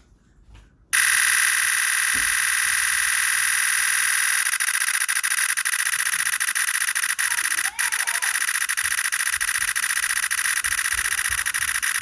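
Nikon Z 8 firing a continuous high-speed burst: a rapid, unbroken stream of shutter clicks starts suddenly about a second in and keeps going. The camera has no mechanical shutter, so the clicks are its electronic shutter sound played through its speaker.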